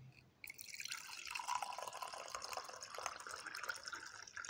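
Water being poured into a container, a steady splashing trickle that starts about half a second in; its pitch drops over the first second and then holds.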